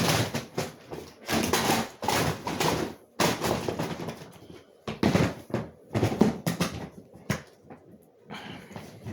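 Handling noise: rustling and a few knocks as objects are moved about, in bursts of about a second.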